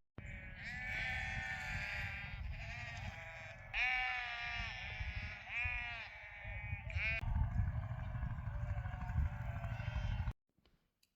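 A flock of sheep being herded, bleating in many overlapping calls for about the first seven seconds, with wind rumbling on the microphone throughout. The sound cuts off suddenly near the end.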